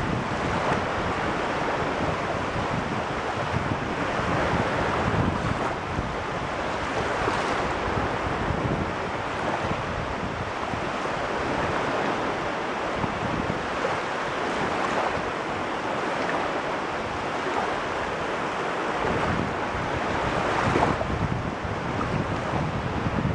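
Waves of the Caspian Sea washing steadily in slow swells, with wind buffeting the microphone.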